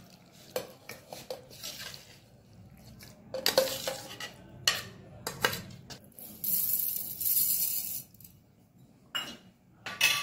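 Steel utensils clanking and clinking as custard apple pulp is tipped from a steel plate into a stainless steel mixer-grinder jar. Then granulated sugar pours into the steel jar with a steady hiss for about two seconds, followed by two more clinks near the end.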